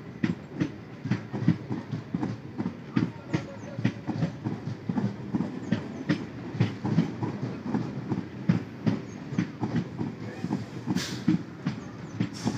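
EMU electric local train rolling slowly past, its wheels knocking over the rail joints in an uneven clickety-clack of several knocks a second over a low rumble. A short burst of hiss comes near the end.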